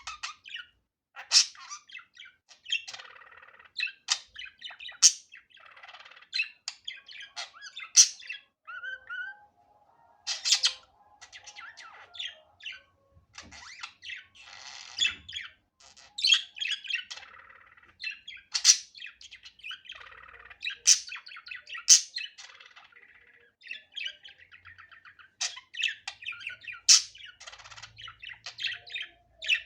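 Budgerigar chattering and warbling without a break, with rapid chirps, buzzy trills and frequent sharp, loud squawks.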